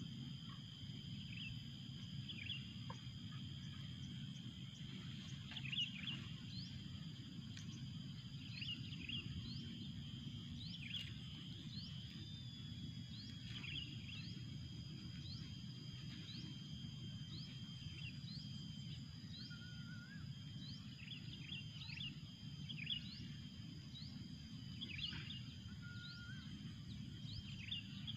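A small bird giving short, sharp rising chirps, roughly once a second, over a steady high insect drone and a low rumble.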